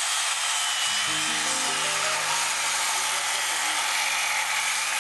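Circular saw at full blade depth cutting along a line through a treated lumber beam: a steady, loud cutting noise with a high whine over it. Background music with stepped notes comes in about a second in.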